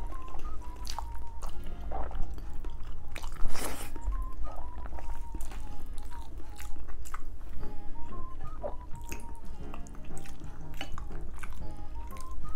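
Close-miked chewing with small wet mouth clicks from someone eating boiled pork and rice, over soft background music with a simple repeating melody.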